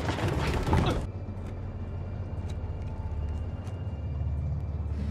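Film sound mix: the loud tail of an action burst in the first second, then a low steady rumble with a few faint clicks.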